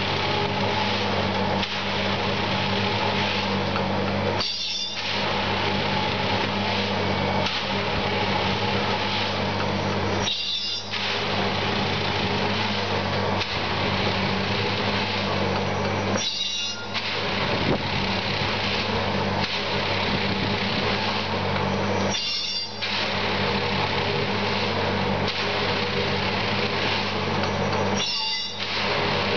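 Track tamping machine working: its diesel engine and tamping gear run with a steady loud drone and clatter, and in a regular cycle about every six seconds the low hum briefly drops and a short high hiss sounds as the machine steps to the next sleeper.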